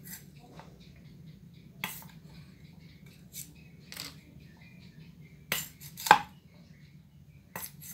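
Golok (machete) blade knocking and splitting bamboo strips on a wooden block: a handful of sharp clacks at uneven intervals, the loudest about six seconds in.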